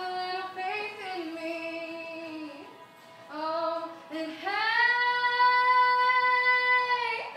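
A young girl singing alone, unaccompanied: a few short phrases, then one long held note over the last few seconds that stops just before the end.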